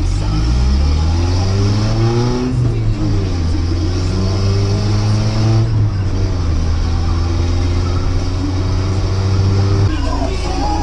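Nissan Hardbody pickup's engine revving hard: the pitch climbs for about two and a half seconds, dips, climbs again, then holds at high revs for several seconds before the throttle comes off suddenly near the end.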